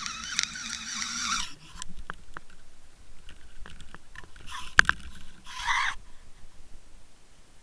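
Waterproofed camera on a fishing line being reeled up through the water: a steady underwater rush that cuts off suddenly about a second and a half in, then scattered knocks and scrapes against the housing, and two short splashes near the middle as it breaks the surface and is hauled into the boat.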